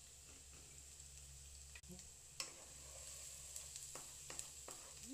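Minced garlic sizzling faintly in hot oil in a non-stick frying pan. From about halfway through, a wooden spatula stirring it makes scattered taps and scrapes against the pan.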